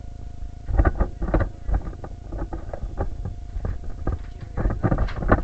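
Irregular soft knocks and rustling: handling noise from a camera mounted on a Nerf blaster as it is carried along, with a cluster of louder knocks near the end.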